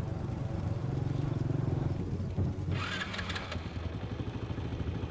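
Motorcycle engine running steadily at low speed as the bike rides up, with a brief hissing rattle about three seconds in.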